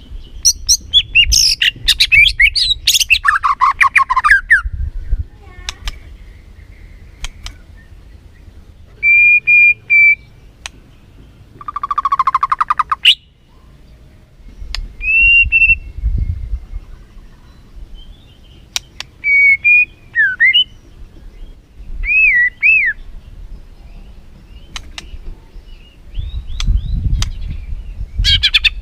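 White-rumped shama (murai batu) singing loud, varied phrases a few seconds apart: a burst of rapid chattering notes at the start, clear whistled notes later, and a fast buzzy rattle about halfway through, with sharp clicks between phrases.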